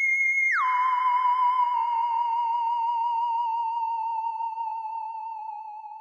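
Electronic sci-fi sound effect: a steady high whistling tone swoops down sharply about half a second in, then wavers with a fast vibrato as it slowly sinks and fades.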